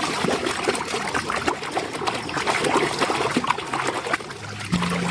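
Water trickling and splashing as mud is washed off a toy vehicle.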